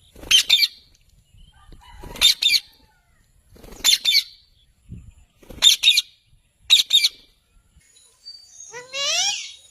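Pet parakeet calling: five short, shrill double-note screeches spaced about a second and a half apart, then a longer call of rising notes near the end.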